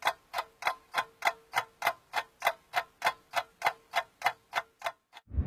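Clock ticking steadily at about three ticks a second, then stopping; music with heavy bass comes in near the end.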